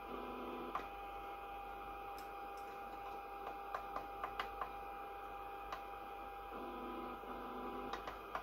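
Small push buttons on a Bluetooth module's front panel clicking as they are pressed, in a quick run of clicks about halfway through and again near the end, over a steady electrical hum from the boombox.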